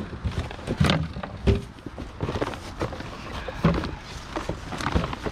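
Rummaging through a pile of junk: irregular knocks, clatters and rustling as items are handled and shifted, with a few sharper knocks about a second in and near the middle.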